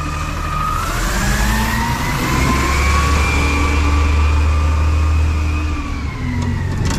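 Garbage truck pulling away close by, its engine running with a low hum under a whine that rises in pitch over the first couple of seconds, holds, then falls away near the end.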